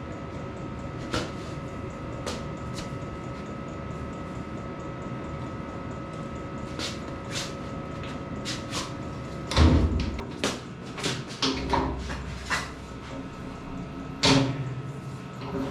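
A steady hum with a few faint clicks, then a run of loud clunks and knocks starting a little past halfway, with one hard knock near the end.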